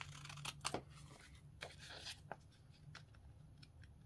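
Scissors snipping through scrapbook paper, several short crisp cuts trimming the overhanging edge of a paper border, most of them in the first two seconds.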